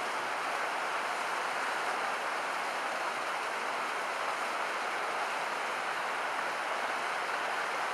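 Rushing water of a rocky stream running over rapids, a steady hiss.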